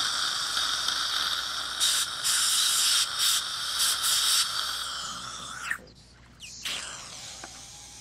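Dental suction mirror drawing air and saliva in the mouth with a steady hiss, louder and sputtering with slurping spurts in the middle. The hiss drops off suddenly about three-quarters of the way through as the mirror is taken out, leaving a fainter hiss.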